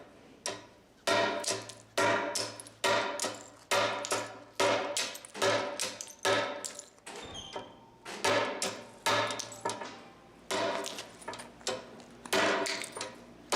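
Hammer blows on a steel chisel chipping the edge of an Indiana limestone slab: a steady run of sharp, ringing strikes about two a second, with a short break about seven seconds in.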